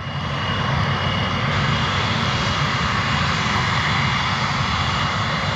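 Airbus A330-300 freighter's twin jet engines at taxi power as it rolls close by: a steady rushing noise over a low rumble, with a thin high whine, growing a little louder in the first second and then holding.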